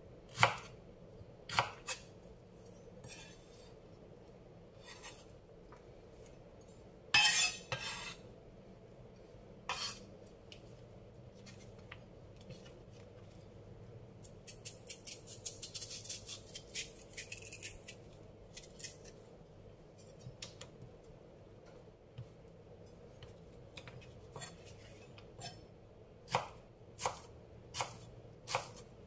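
Kitchen knife cutting raw green mango into strips on a cutting board: scattered sharp knocks of the blade on the board, a run of light clicking and scraping in the middle, and a string of evenly spaced chops near the end.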